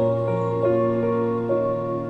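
Slow, soft film-score music: sustained melodic notes changing every half second or so over a held low bass note.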